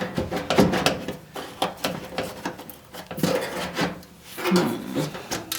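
Samsung gas dryer's lint screen being worked out of its slot where it is caught: scraping and rubbing with repeated small knocks.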